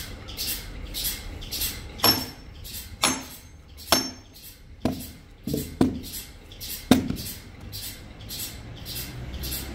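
Sawmill machinery: a rhythmic swishing about twice a second, with sharp knocks and clanks of wood and metal at irregular intervals.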